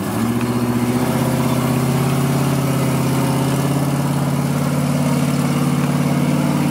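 Ford F-350 pickup's engine held at high, steady revs while it is towed out of deep mud, its rear wheels spinning and flinging mud.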